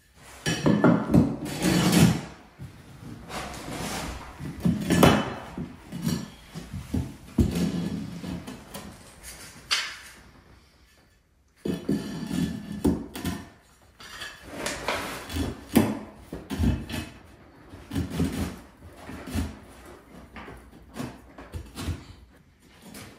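Hand-painted ceramic tiles clinking and scraping as they are set down and shifted against each other on a bare floor: a string of sharp knocks with a short quiet pause about halfway through.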